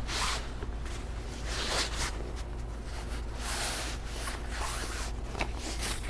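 Several short rustling swishes, one after another, with a rasp like a zipper, as of material being handled.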